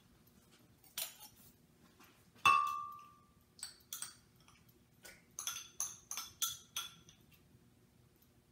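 Clinks and taps of kitchenware as pumpkin puree is scraped from a glass bowl into a blender jar: scattered light clicks, one sharp ringing clink about two and a half seconds in, then a run of quick taps.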